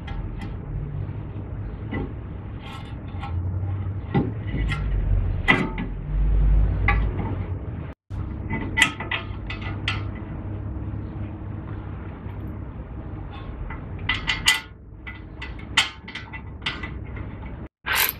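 Metal clicks, clinks and knocks as a brake caliper bracket loaded with new pads is handled and fitted over the rotor onto the steering knuckle, with heavier thuds about four to seven seconds in.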